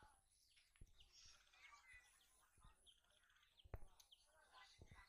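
Faint outdoor ambience of small birds chirping and calling, with a few soft low thumps, the loudest a little after the middle.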